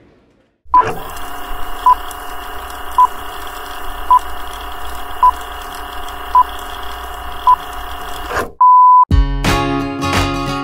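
Film-leader countdown: seven short, high beeps about a second apart over a steady hum, then one longer beep. Acoustic guitar strumming starts near the end.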